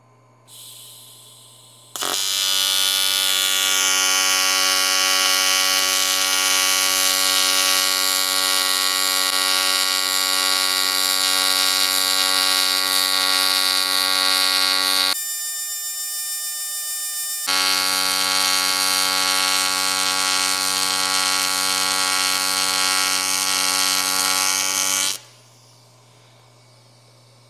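AC TIG welding arc on aluminium at about 150 amps and a 100–120 Hz AC frequency: a loud, steady buzz that starts sharply about two seconds in after a short hiss. Its sound changes for about two seconds midway, and it cuts off about two seconds before the end.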